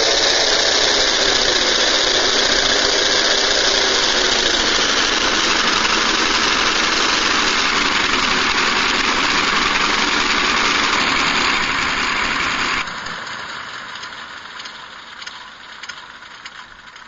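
Recorded sound of four Wright Cyclone radial aircraft engines played through a MrRCSound V4 RC sound module's speakers: the engines run loudly together, then about thirteen seconds in the sound drops sharply and dies away with scattered crackles as they shut down.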